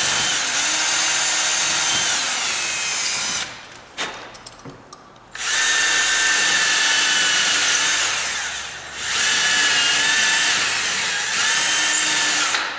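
Power drill spinning on high speed, its bit used sideways as a grinder to cut and clean up wood inside a bored hole. It runs in three long bursts, stopping for about a second and a half around four seconds in and dipping briefly near nine seconds, with a few knocks during the first pause.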